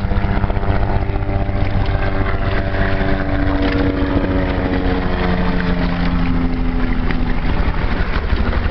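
Motorboat engine droning, its pitch slowly sinking over several seconds, over a steady rumble of wind on the microphone.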